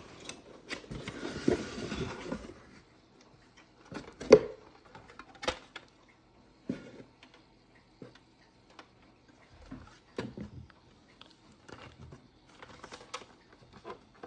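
Mouseketeer Fan Club typewriter clacking: single sharp strikes at irregular spacing, roughly one a second, the loudest about four seconds in, after a couple of seconds of rustling handling noise.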